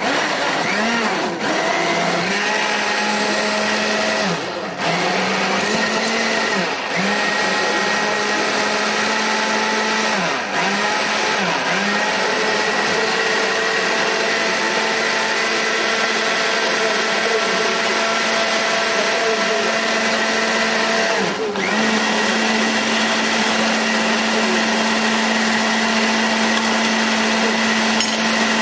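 Electric countertop blender running, pureeing chunks into juice. The motor's pitch dips briefly several times in the first twelve seconds and once about twenty seconds in, then it runs steadily.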